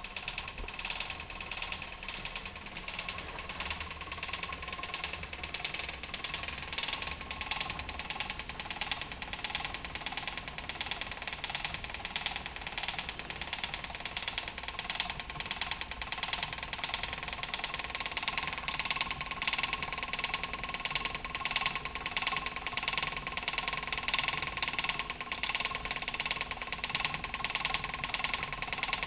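Spinning wheel turning steadily, with a fast, even clacking and a steady whir.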